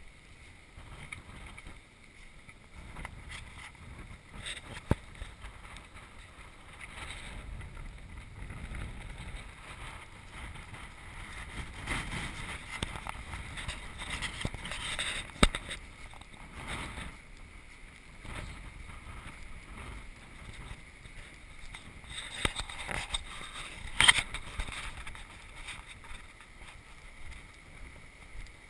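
Water splashing and sloshing in shallow floodwater on a wet road, with wind buffeting the microphone. Three sharp knocks stand out, about five seconds in, in the middle and near the end.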